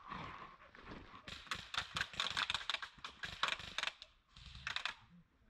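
Rapid, dense crackling and rustling clicks in two runs: a long one starting about a second in and lasting over two seconds, and a shorter one near the end.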